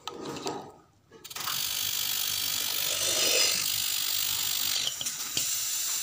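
Compressed gas hissing steadily through a refrigeration gauge manifold hose into a refrigerator's sealed system, pressurising it for a leak test at 100 PSI. The hiss starts abruptly about a second in after some handling of the fittings and lasts about five seconds.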